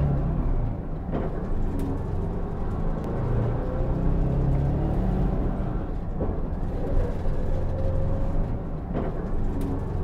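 City bus interior: a steady low rumble of the engine and road, with a few brief rattles or clicks.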